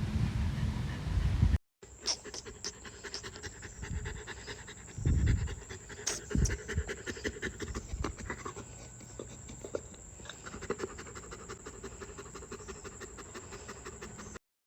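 Dog panting rapidly for about twelve seconds, with a thin steady high tone beneath; it cuts off abruptly near the end. It is preceded by a second and a half of low rumbling noise that ends with a cut.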